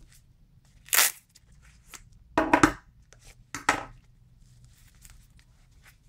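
Strong hook-and-loop (Velcro) closure on a nylon multitool sheath being pulled apart, three short ripping rasps over about three seconds, the middle one the loudest.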